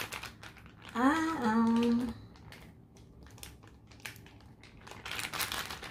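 Plastic zip-lock bag crinkling as hands press and flatten marinated pork inside it, with crackles at the start and again near the end. About a second in, a short hummed voice sound, held for about a second.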